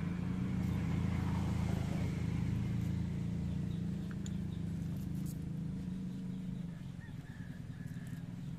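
Electric fan motor running with a steady low hum, easing off a little near the end.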